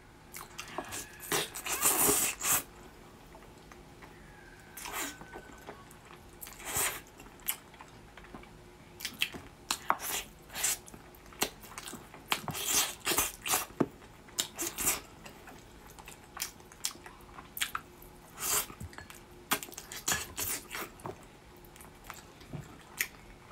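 Close-up wet chewing and lip-smacking on a braised pork trotter so tender the meat falls off the bone, with soft sticky sounds as skin and meat are pulled apart by hand. Irregular short smacks and clicks, loudest about two seconds in.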